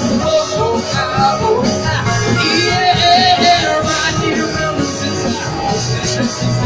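Live rock band playing a song, with electric guitar and keyboard, heard from among the audience in a small venue.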